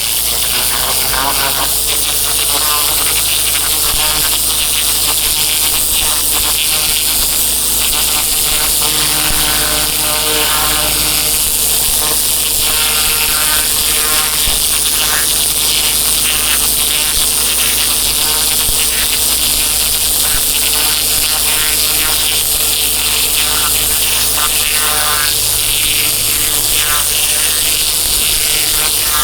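Pressure washer running steadily: a motor hum under the hiss of its high-pressure water jet.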